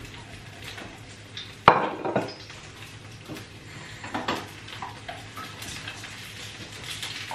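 A metal utensil clinking and scraping against a frying pan and a plate as pan-fried dumplings are lifted out onto the plate; a sharp clatter about a second and a half in is the loudest, with a few lighter knocks after it. A steady low hum runs underneath.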